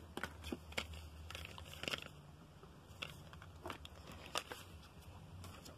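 Faint, scattered clicks and crinkles of cosmetic packaging being handled and rummaged through by hand.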